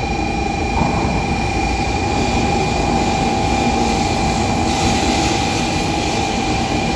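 Shinkansen bullet train at the station platform: a steady rumble with a constant high whine.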